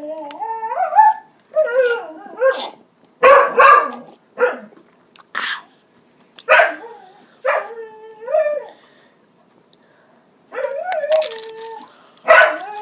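A dog barking repeatedly in short sharp barks, mixed with a few longer wavering whines, with short pauses between.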